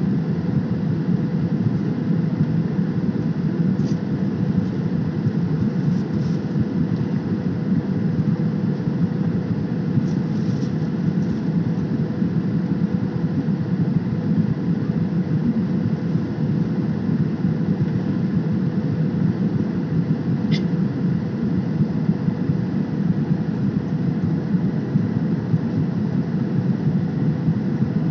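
Steady cabin noise of a Boeing 737 jet airliner in flight, heard from a window seat: an even rumble of engines and airflow with a constant faint hum.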